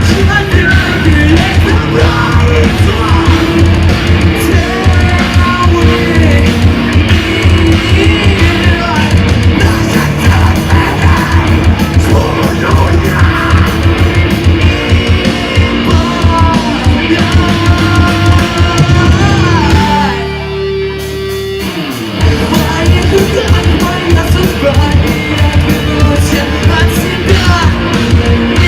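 Live emocore band playing loud: distorted guitars, heavy drums and sung and yelled vocals. About twenty seconds in the drums break off for roughly two seconds over a held note, then the full band crashes back in.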